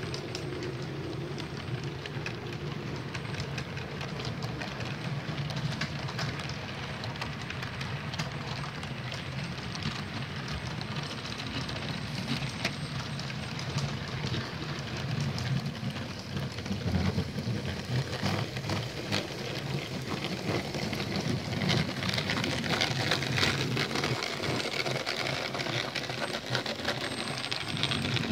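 HO scale model coal train rolling past on the track: a steady patter of small metal wheels clicking over rail joints over a low hum, getting louder in the last third.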